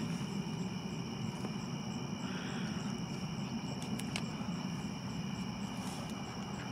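Crickets trilling steadily in an evening insect chorus, over a low steady rumble.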